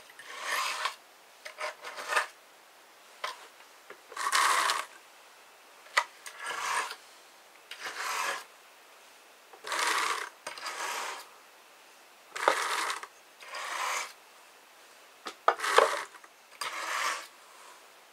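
About a dozen short rasping strokes, each under a second and coming every second or two, as wool fibre is worked against the wire teeth of a drum carder.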